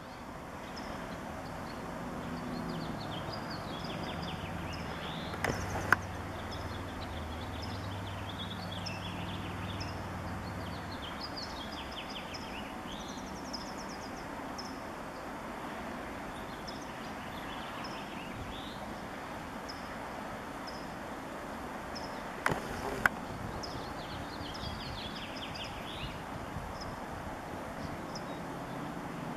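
Outdoor pond ambience: birds chirping and singing on and off, with a low engine drone in roughly the first third. Two pairs of sharp clicks stand out, one pair about a fifth of the way in and another about three-quarters through.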